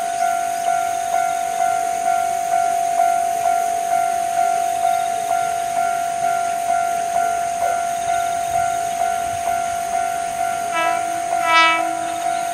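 Japanese level-crossing warning bell ringing steadily at about two strikes a second, with a short blast from an approaching diesel railcar's horn about eleven seconds in.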